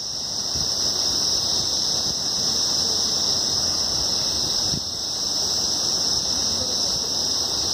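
Steady high-pitched drone of cicadas from the forested hillside, unbroken and loud, with a faint rough rumble of wind underneath.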